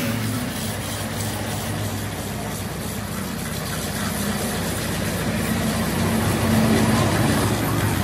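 Handheld grinder with a small abrasive disc running steadily while it buffs the rubber inside a large tractor tire, roughing the surface around the damage before patching. A steady low motor hum runs under the grinding, dipping a little midway.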